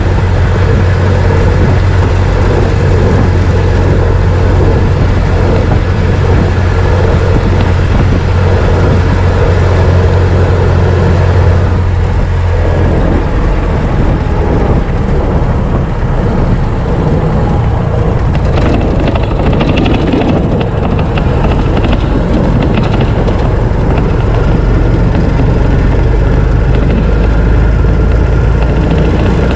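1926 Ford Model T's four-cylinder side-valve engine running while the car is driven. The engine note drops to a lower pitch about twelve seconds in, with some rattling a few seconds later.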